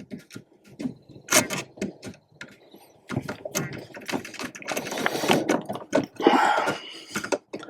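Small clicks, scrapes and rattles of a hand screwdriver and stiff electrical wiring being worked at a GFCI outlet's terminal screws. The sounds are sparse at first and busier in the second half.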